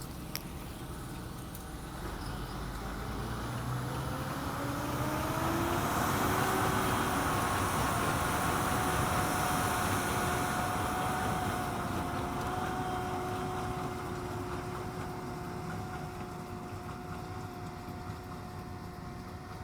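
A tractor engine working a hayfield rises in pitch as it revs up, then holds steady. The machinery grows louder as it comes close and then fades slowly as it moves away.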